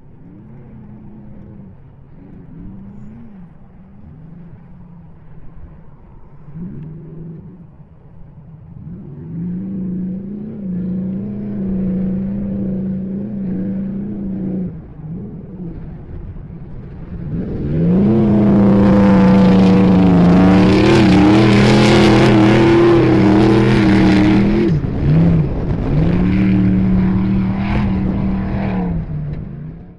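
Off-road race truck engine held at high revs. It is faint and distant at first and grows louder as it approaches, then runs very loud and close for the last twelve seconds or so, with a rushing hiss at its loudest. The revs dip briefly a few times, and the sound cuts off abruptly at the end.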